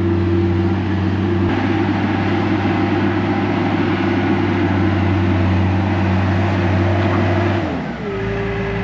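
Skid loader's engine running steadily at high speed while loading screened dirt into a truck, its note changing about eight seconds in.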